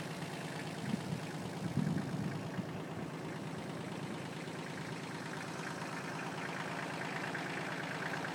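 Kubota B16 compact tractor's small three-cylinder diesel engine running steadily, with a few louder bumps about a second in.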